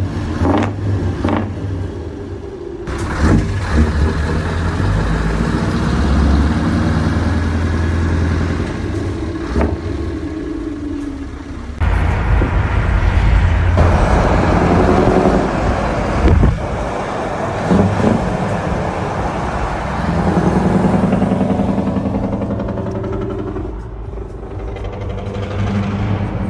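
Scania Longline truck's engine running hard through its exhaust stacks, its pitch rising and falling as it accelerates and changes gear, over steady road and tyre noise; it gets suddenly louder about halfway through.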